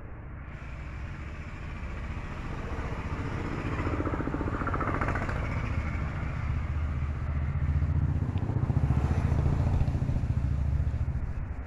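A motor vehicle's engine passing by. Its rumble grows louder over several seconds, is loudest about two-thirds of the way through, then fades near the end.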